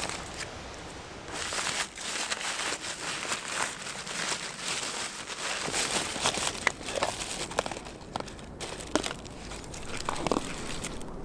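Dense crinkling and crunching noise, starting about a second and a half in and running on with many small crackles.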